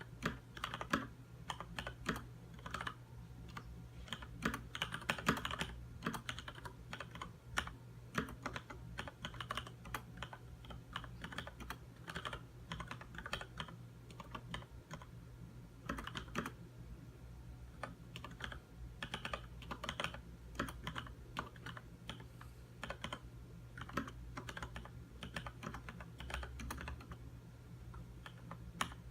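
Continuous typing on a Leopold FC900R mechanical keyboard with Cherry MX Red linear switches: a quick, irregular run of keystroke clacks, with a faint steady low hum beneath.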